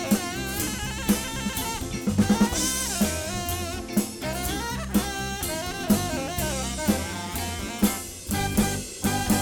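Live soul band playing an instrumental break: the drum kit keeps a steady beat with a hard hit about once a second over the bass line, while a lead instrument plays a bending melody above.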